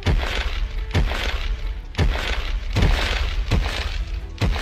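Background music with a strong, regular beat: sharp crashing hits about once a second over faint sustained tones.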